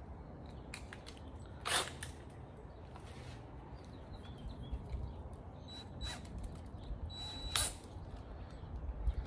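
Short rasping zips of plastic zip ties being pulled tight on a wire coat-hanger tool, with small squeaks. There are several separate strokes, the loudest about two seconds in and again near the end.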